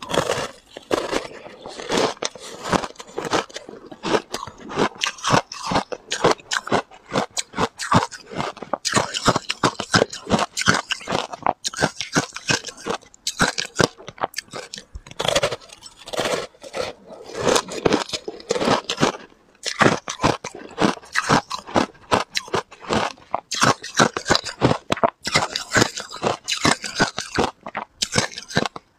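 A chunk of ice being bitten and chewed close to a clip-on microphone: dense, rapid crunching and crackling bite after bite.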